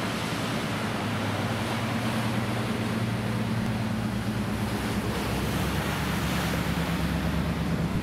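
Ocean surf breaking against a rocky shore: a steady wash of waves, with a low steady hum underneath.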